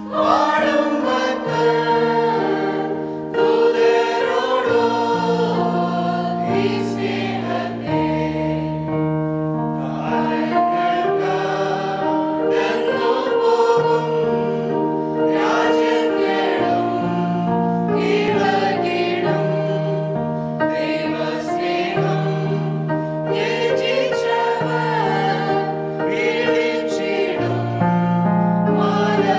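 Mixed choir of adults and children singing a Malayalam Christian song, accompanied by a keyboard holding long bass notes that change every second or two.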